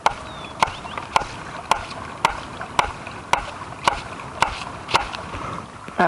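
Repeated hammer blows driving a stake into the ground, eleven evenly spaced strikes at just under two a second.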